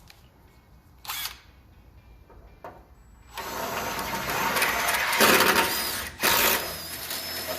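Power drill boring out a hole in the F150's tailgate metal, enlarging it toward 1/4 inch. A short blip of the drill about a second in, then two longer runs with a brief stop between them.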